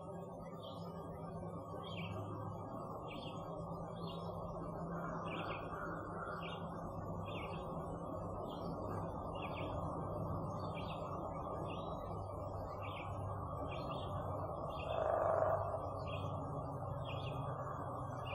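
A songbird repeating a short, high chirp about every two-thirds of a second, over a steady low rumble of background noise that swells briefly about fifteen seconds in.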